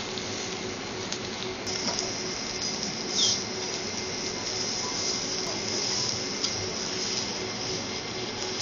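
Vegetables sizzling on a steel teppanyaki griddle, with a few light clicks of a knife and carving fork against the steel. The sizzle grows stronger about two seconds in, and there is a brief louder hiss about three seconds in.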